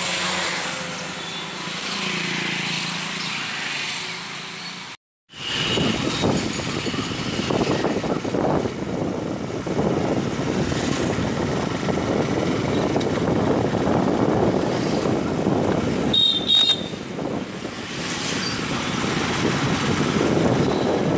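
Wind and road noise on the microphone while riding in a moving vehicle. The sound drops out for a moment about five seconds in, then comes back louder and rougher, with a short high tone about sixteen seconds in.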